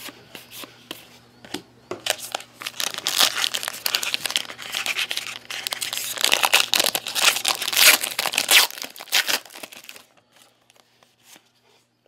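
A 2013 Panini Golden Age trading-card pack's wrapper being torn open and crinkled by hand: a dense crackling that starts about two seconds in, is loudest in the second half, and stops shortly before the end.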